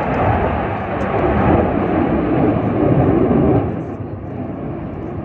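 An airplane flying over with a loud, even rushing roar that falls away about three and a half seconds in.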